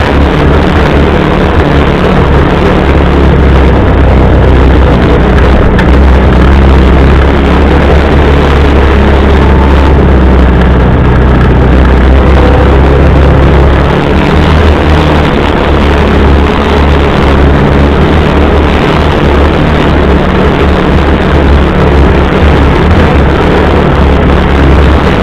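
CFMoto UForce 600 side-by-side under way on a dirt trail: its engine and drivetrain run loud and steady with a deep low drone, and there is a brief waver in the drone about halfway through.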